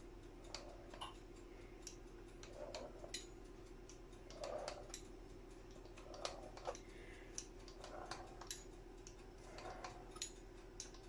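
Pizza cutter wheel rolling through a sheet of bread dough on a wooden board, making about six faint, soft strokes roughly every one and a half to two seconds with light clicks between them, over a steady low hum.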